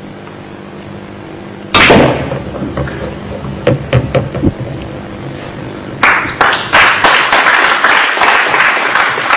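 Pool shots on a nine-ball table: a sharp knock about two seconds in and a few lighter clicks of balls striking each other over the next few seconds. From about six seconds in, an audience claps.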